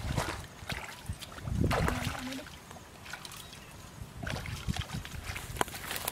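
Feet wading and splashing through shallow muddy water, loudest about a second and a half in, then crackling rustles and snaps of dry grass and brush as the wader steps out of the ditch and walks off.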